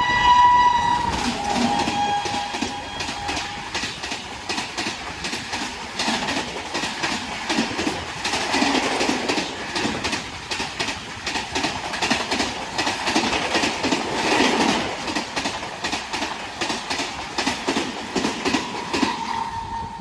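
WAP-7 electric locomotive sounding its horn as it passes at speed, the pitch dropping as it goes by. Then the express's coaches rush past with a rapid clickety-clack of wheels over the rail joints, which falls away at the end.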